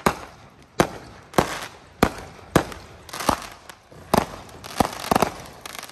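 Fireworks going off: about eight sharp bangs at irregular intervals, some trailing off in a short smear of sound.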